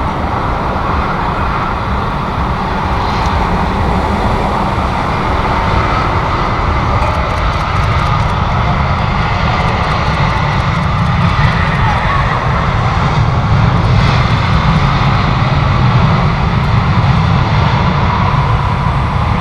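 Jet airliner engines running as the aircraft passes on arrival: a steady, loud rumble that swells a little in the second half.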